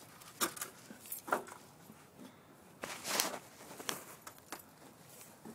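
A few scattered crunches and knocks of people moving about on frozen, icy ground, about half a dozen in all, the longest about three seconds in.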